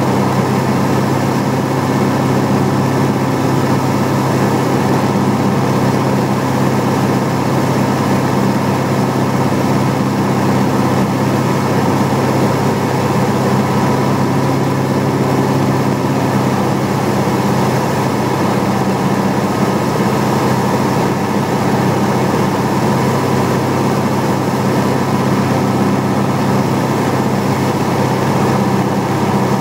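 Light aircraft's piston engine and propeller running steadily on the approach, heard from inside the cabin as an even, unchanging drone.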